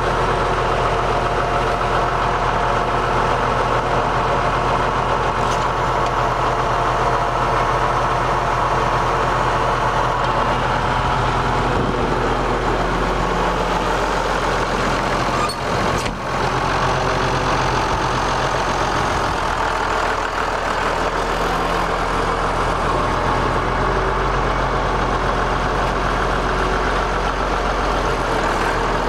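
1981 White 2-105 tractor's diesel engine idling steadily, with a brief dip in level about halfway through.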